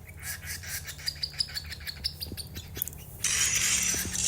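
Small pet parrots chirping in quick, repeated short calls. About three quarters of the way through, a steady hiss sets in and becomes the loudest sound.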